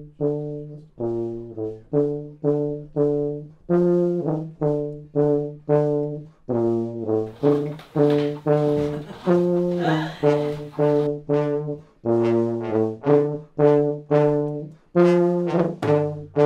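Brass-band music: trombones and trumpets playing short, accented chords in a quick repeated rhythm.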